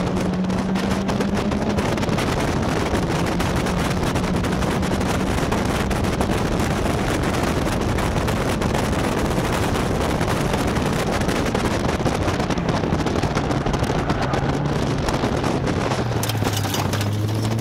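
Caterham Seven race car's engine running hard at speed, heard from an open-cockpit onboard camera under heavy wind buffeting on the microphone. The engine note sags slowly, then drops lower near the end as the car slows for a corner.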